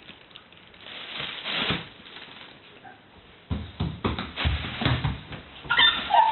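Soft rustling of a plastic bag, then from about halfway a run of dull thumps and knocks, with a small child's voice starting near the end.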